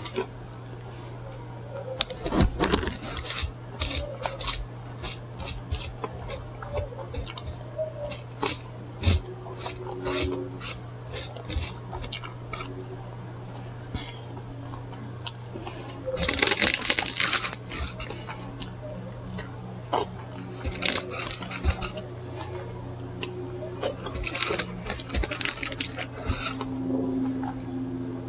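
Close-miked eating sounds: a chicken sub sandwich being chewed, with wet mouth clicks and smacking, and bursts of crinkling paper wrapper, the longest a little past halfway. A steady low hum runs underneath.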